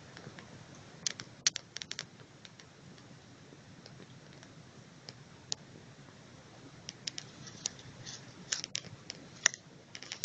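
Scattered short, sharp clicks and crackles, in a cluster about a second in and another from about seven to nine and a half seconds, over a faint low steady noise.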